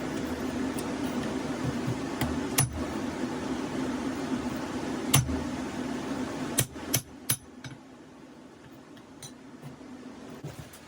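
Steady running noise of forge equipment, with a few single sharp metallic clinks of steel tools; the steady noise drops away about seven seconds in.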